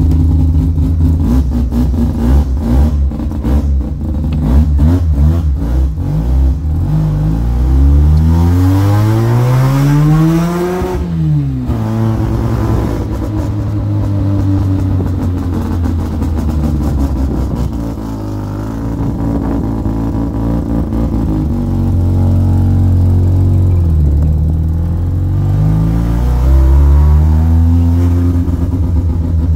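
A car engine heard from inside the cabin as the car is driven slowly. It revs up steadily for about four seconds, then drops off suddenly, runs at low revs with small rises and falls, and revs up again near the end.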